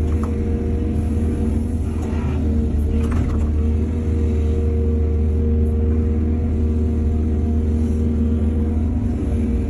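Excavator's diesel engine running steadily with a deep rumble, with a few brief scraping noises about two and three seconds in.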